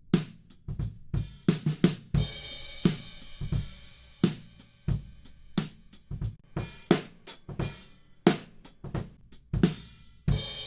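Recorded acoustic drum kit playing a groove: kick drum and snare hits with hi-hats, cymbals washing over the beat from about two seconds in, and a loud crash near the end left ringing.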